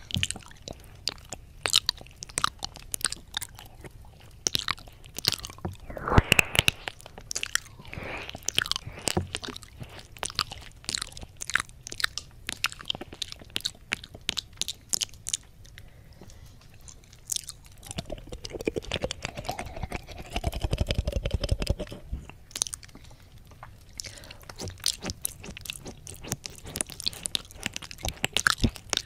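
Close, wet ASMR 'ear eating' mouth sounds made right against a 3Dio binaural microphone's silicone ear: dense licking, lip-smacking and tongue clicks. About eighteen seconds in comes a muffled hum lasting a few seconds.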